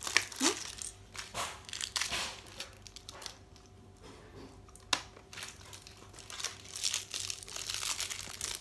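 Toy wrapping crinkling and tearing as it is unwrapped by hand, in irregular handfuls with a short lull in the middle and one sharp click about five seconds in.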